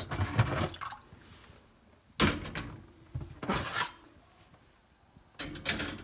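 Plastic dishwasher filter being twisted loose and lifted out of the sump, giving a few short scrapes and knocks of plastic against the stainless tub, spaced a second or so apart.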